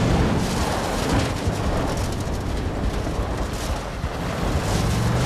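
A cargo van and a chasing SUV running hard and sliding on loose gravel and dirt, with tyres skidding and spraying grit. A low engine note is heard near the start and climbs again near the end.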